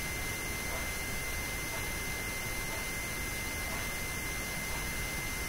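Steady hiss with a constant high-pitched electrical whine, without any distinct knocks or clicks.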